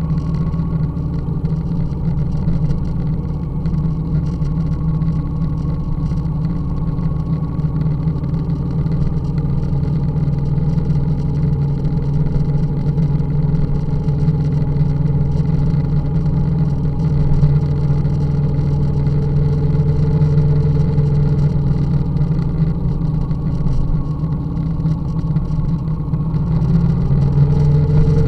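Engine of the vehicle carrying the camera running steadily under way, heard from on board, with its pitch rising slightly a few times.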